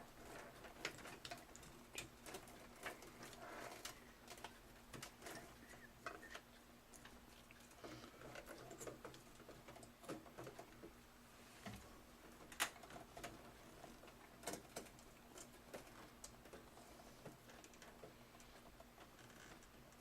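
Faint, scattered clicks and rustling of computer power supply cables being handled and their connectors plugged into the drives, with one sharper click about twelve seconds in.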